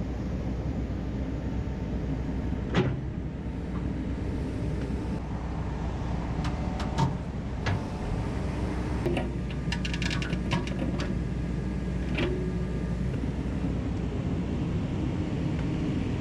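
Excavator diesel engine running steadily while it works, with a few sharp knocks and a brief cluster of clatters in the middle as the machine moves boulders.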